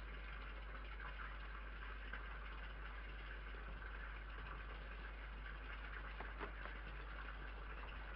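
Steady low electrical hum and hiss from a security camera's microphone, with a few faint clicks about six seconds in.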